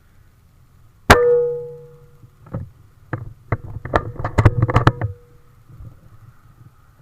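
A single air rifle shot about a second in: a sharp crack with a metallic ring that fades over about half a second. It is followed by a run of sharp metallic clicks and knocks lasting about two and a half seconds.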